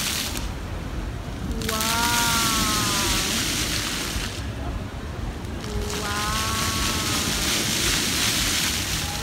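Splash-pad fountain jets spraying onto wet paving: a steady hiss of water that cuts out about half a second in, comes back after about a second, cuts out again near the middle and returns as the jets cycle on and off. A high, drawn-out call sounds twice over the water.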